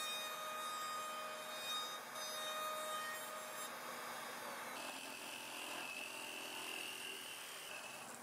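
Trim router in a router table running with a steady high whine as a small hardwood piece is fed along a bearing-guided bit. About five seconds in the sound changes to a hole saw cutting into a wooden board.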